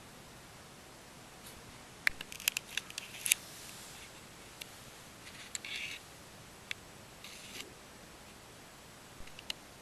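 Small hand-handling sounds from parts being worked at a bench: a quick run of sharp clicks and snips about two seconds in, then short scrapes, a lone click and two last clicks near the end.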